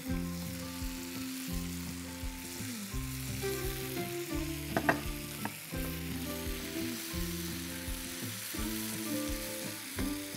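Chicken, pineapple and spring onions sizzling in a frying pan as they are stirred with a wooden spatula, with a few sharp knocks of the spatula against the pan about five seconds in. Soft background music with held notes plays underneath.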